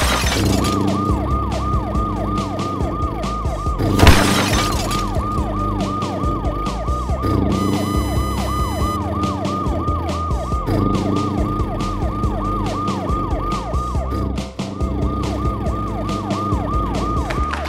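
Cartoon siren sound effect wailing in rapid repeated falling sweeps, about three a second, over a steady backing music loop. Two loud crash-like bursts sound at the start and about four seconds in, and a brief high chime about eight seconds in.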